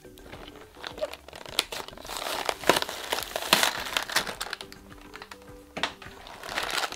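Plastic toy packaging crinkling and crackling as it is handled, loudest a couple of seconds in, over background music with held notes.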